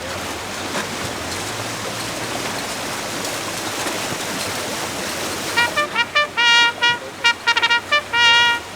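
Steady hiss of heavy rain, then, about two-thirds of the way in, a run of short horn-like toots of uneven length.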